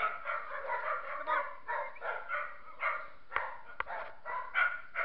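Several kennelled dogs barking over one another in quick, repeated bursts, with a couple of sharp clicks a little past the middle.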